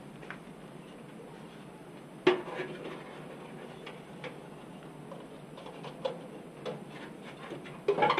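Scattered light clicks and clanks of a headlight and its metal bucket being handled and fitted into a pickup's front end, the sharpest about two seconds in and a small cluster near the end.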